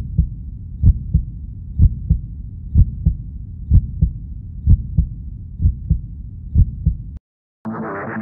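Heartbeat sound effect: paired low thumps, lub-dub, just under once a second over a steady low rumble, cutting off about seven seconds in. After a brief silence, electronic music starts to swell near the end.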